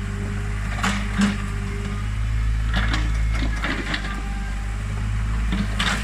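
Diesel engine of an old Komatsu PC40 excavator running steadily, with several short knocks and scrapes from the bucket working the soil.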